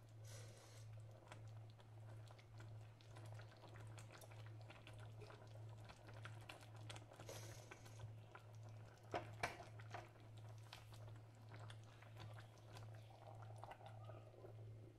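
Faint stirring and scraping of a wooden spatula through eggplant slices simmering in coconut milk in a stainless steel pan, with two sharper knocks about nine seconds in, over a low steady hum. A glass lid is set on the pan near the end.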